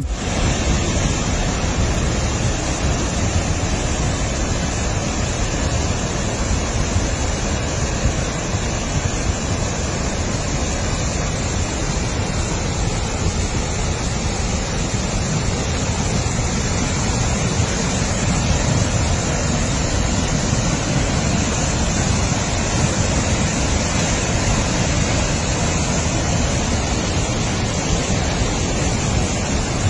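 A mountain stream in flood after heavy rain, swollen and muddy, rushing over rocks and boulders in a loud, steady torrent.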